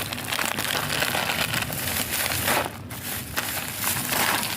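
Continuous crinkling and crunching noise, dipping briefly a little past the middle.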